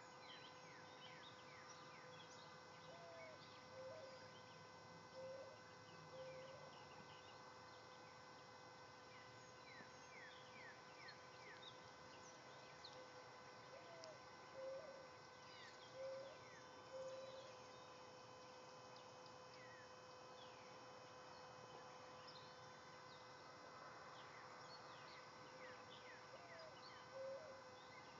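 Faint outdoor ambience: birds giving short chirps throughout, over a steady droning tone.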